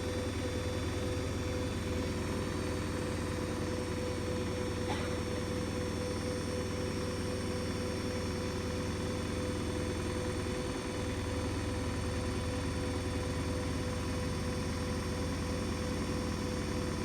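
Hoover Dynamic Next DXC C49W3 washing machine running, loud and steady: a low hum with a constant motor whine over it.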